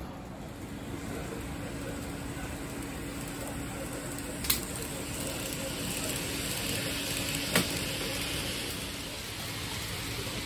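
TOMIX 117-series N-gauge model train running on the layout: a steady hiss of wheels and motor that grows louder around the middle, with a faint low hum and two single sharp clicks.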